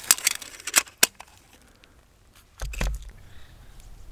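Handling noise from a camera and lens being worked by hand close to the microphone: a quick run of sharp clicks and rattles, then a single low thump about three seconds in.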